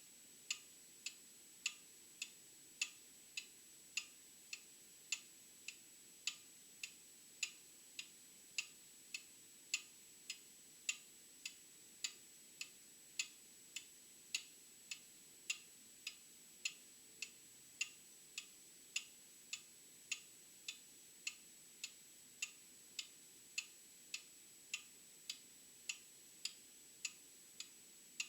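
Old mechanical clock ticking steadily, its tick-tock alternating louder and softer beats at somewhat under two a second, with a faint steady high whine beneath.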